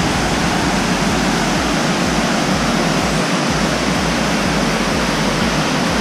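Water pouring over a concrete dam spillway and cascading down a rocky gorge: a loud, steady rush.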